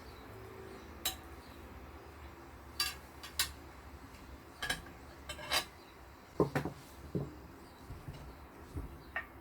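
Kitchen utensils and dishes clinking and knocking: about ten separate light strikes, some ringing briefly, with a few duller knocks in the middle.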